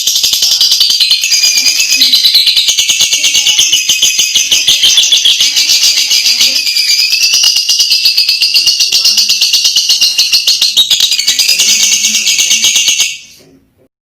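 Lovebird singing a long, very fast chattering trill that runs unbroken and then stops abruptly about a second before the end.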